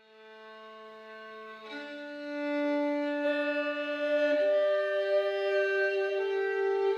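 Violin and cor anglais playing a slow contemporary duet in long held notes. The music starts softly and grows louder over the first couple of seconds, and a new note enters every couple of seconds, each one higher than the last.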